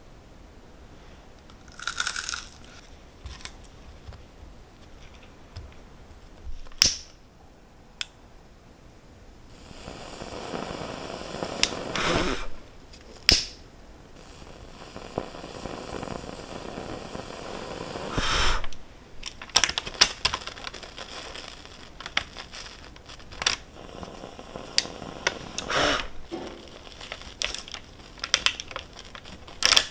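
Parchment paper crinkling and cookies being handled, with sharp clicks. Twice, for a few seconds at a time, a steady hiss from a butane kitchen torch browning marshmallows on top of the cookies.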